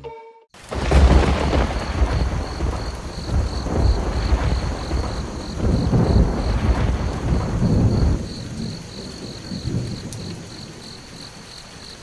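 A thunderstorm sound effect: thunder rumbles over steady rain, then dies away about eight seconds in and leaves the rain hiss. A high, fast pulsing chirp runs through it.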